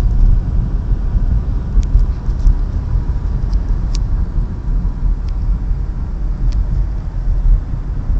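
A car driving along: a steady low rumble of road and engine noise, with a few faint ticks.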